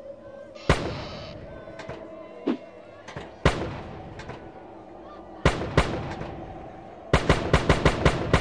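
Rifle shots at biathlon targets: single shots a second or two apart, then a fast run of about seven shots near the end as the targets are knocked over one after another. A faint steady tone runs underneath.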